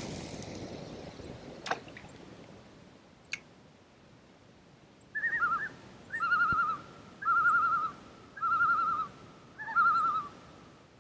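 A common loon giving its quavering tremolo call five times in a row, starting about five seconds in. Each phrase is a short higher note that drops into a wavering lower one. A few faint clicks come in the first seconds.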